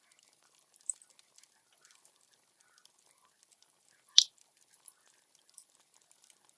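Wood fire crackling: scattered small pops and ticks, with one sharp, loud pop about four seconds in and a smaller one about a second in.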